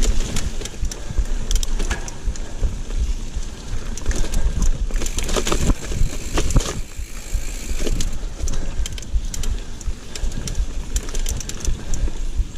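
Giant mountain bike ridden fast over a rooty dirt trail: steady low rumble and hiss of tyres and moving air, broken by many sharp rattles and knocks as the bike jolts over roots and rocks.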